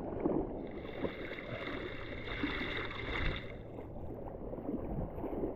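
Rough sea water washing and sloshing around the waders, with wind buffeting the microphone. About a second in, a faint high whine starts and runs for about three seconds.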